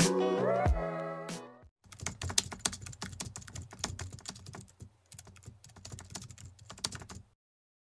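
Background music fading out over the first second or two, then rapid, irregular computer keyboard typing clicks for about five seconds that stop abruptly near the end.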